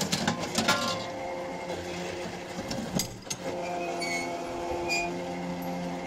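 Tripod drop-hammer pile driver and its electric winch: rattling clicks in the first second, a single sharp knock about three seconds in as the hammer comes down, then the winch motor's steady hum as it starts hauling the hammer back up.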